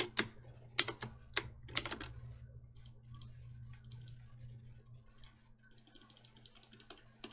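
Computer keyboard and mouse clicks: a quick run of sharp clicks in the first two seconds, then scattered fainter clicks, over a steady low hum.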